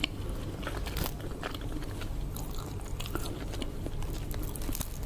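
Close-miked eating sounds: a person biting and chewing seafood, with irregular short mouth clicks and crunches, one of the sharpest about a second in.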